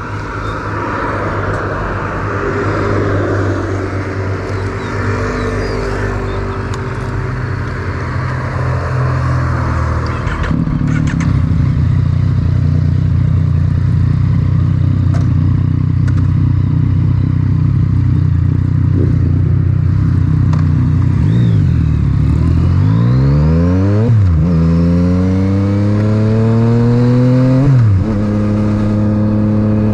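Yamaha MT-09 inline-three engine through an Akrapovic titanium exhaust, with wind noise, first running at a steady low note, then louder from about ten seconds in. Near the end the revs climb twice, each time dropping sharply at an upshift.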